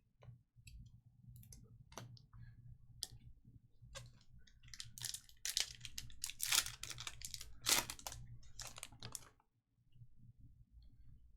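Trading cards and packs being handled: scattered light clicks and taps, then a denser run of louder, sharper handling noises from about five to nine seconds in. A faint steady low hum runs underneath.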